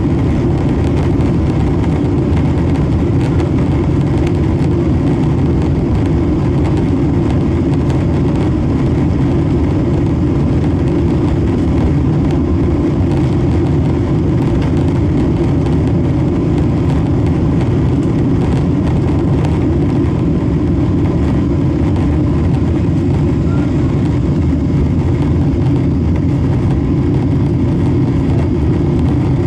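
Boeing 777-300 heard from inside the cabin during its takeoff roll and liftoff: the twin turbofan engines running at takeoff thrust, a steady loud low noise that does not change.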